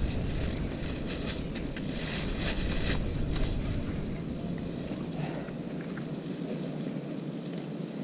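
Wind noise on the microphone, heavy at first and dying down about halfway through, with a few light rustles and clicks of handling around two to three seconds in.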